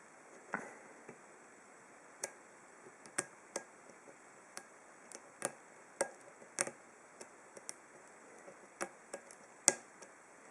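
Lock pick and tension wrench working the pin-tumbler core of a Master Lock No. 19 padlock: irregular small metallic clicks as the hook lifts and sets pins, with one sharper click near the end.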